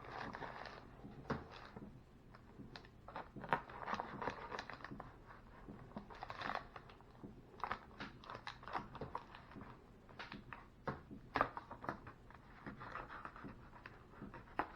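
Rustling and crinkling of food packaging being handled, with many irregular small clicks and taps.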